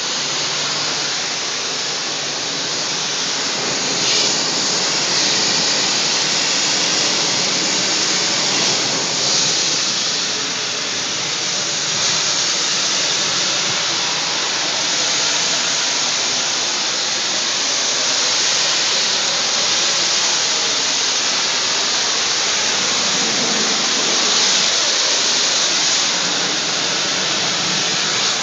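Water jetting from a spray nozzle on the end of an extension pole against house siding: a loud, steady hiss.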